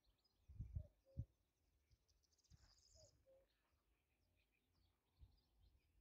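Faint birdsong: scattered short chirps, with a rapid high trill about halfway through. Early on there are a few brief low bumps of wind on the microphone.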